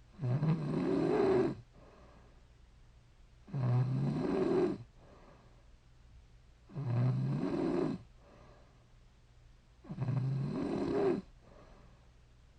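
A woman snoring in her sleep: four long snores, about one every three seconds, with quiet breathing gaps between.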